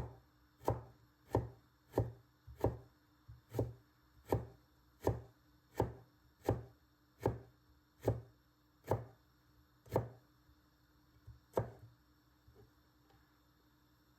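A kitchen knife chopping on a cutting board in slow, even strokes, about three every two seconds, each with a dull knock from the board. The chopping stops a couple of seconds before the end.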